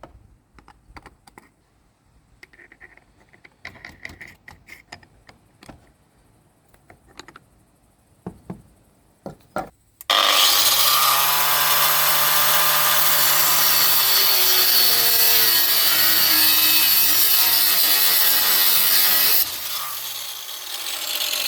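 A few light handling clicks, then a Makita angle grinder switched on about halfway through, running loud and harsh for about nine seconds before it drops off sharply near the end.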